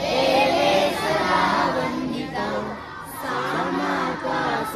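A large group of schoolchildren singing a prayer in unison, many voices together in a sustained, slow melody.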